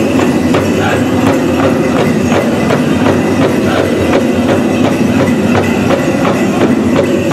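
Powwow drum beating a steady rhythm, about three strokes a second, under a dense jingling rattle from the dancers' leg bells, with the drum group's singing blended in.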